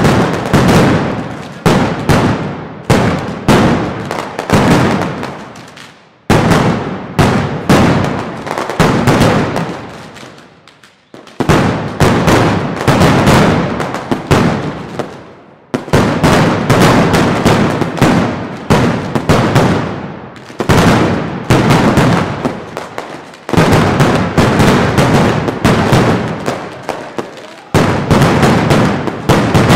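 Mascletà: strings of masclets (loud ground firecrackers) exploding in rapid, rhythmic volleys of bangs. The bangs come in waves that build and fade, with a few short lulls between them.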